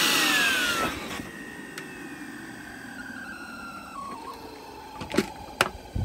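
Numatic Henry vacuum cleaner motor switched off and spinning down, its whine falling slowly in pitch, which the owner calls weird squeaky noises. Near the end there are a few sharp clicks.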